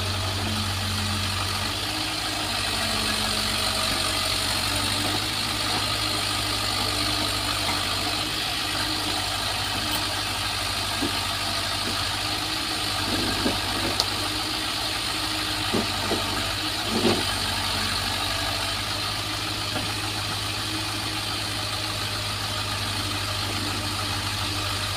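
Small crawler excavator's diesel engine running steadily while it digs and loads a dump truck with mud, with a few short knocks about halfway through.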